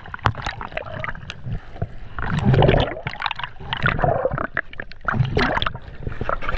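Seawater splashing and gurgling over an action camera at the sea surface as it bobs in and out of the water, in irregular sloshing surges with many short, sharp splashes.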